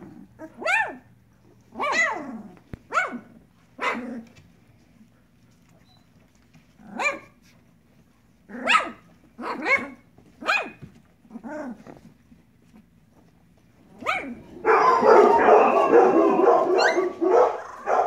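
Newborn puppies about sixteen days old giving short, high yelping cries, about ten separate calls, several dropping in pitch. About three-quarters of the way through, the sound turns into a louder, continuous stretch of overlapping cries.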